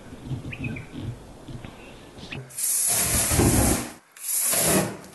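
Aerosol spray can hissing in two bursts, about a second and a half and then half a second long, sprayed into a wood fire in a fireplace to get it burning; a low rumble runs under the hiss. The bursts start about two and a half seconds in, after a faint, quiet stretch.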